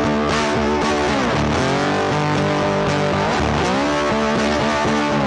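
Background music with electric guitar playing, with pitch bends.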